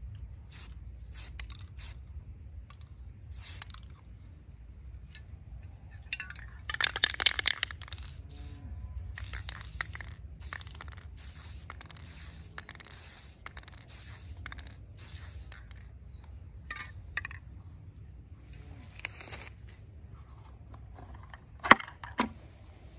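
Aerosol spray can hissing in many short bursts, with a longer, louder, rougher burst about seven seconds in. A single sharp knock comes near the end.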